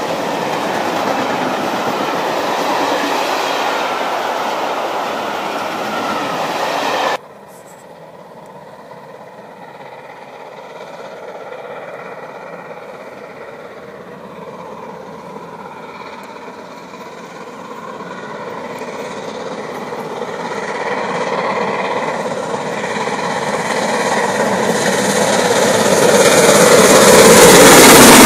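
Coaches of an express hauled by GWR King class 4-6-0 steam locomotive 6024 King Edward I passing at speed, the wheels clattering over the rail joints, until the sound cuts off suddenly about seven seconds in. Then a much quieter rumble of the train approaching grows steadily louder and is loudest at the end as the locomotive itself runs past.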